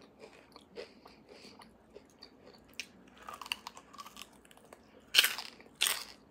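Close-miked chewing of toast and roasted beef bone marrow: soft wet clicks of chewing, then two loud, short eating sounds about five and six seconds in as marrow is taken from the bone with the mouth.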